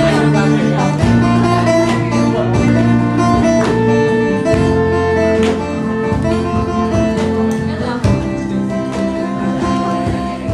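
A small band playing a song live, led by acoustic guitar with sustained chords and notes.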